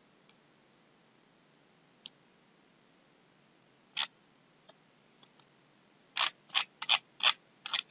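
A few single computer mouse clicks a second or two apart, then from about six seconds in a quick, uneven run of keyboard keystrokes.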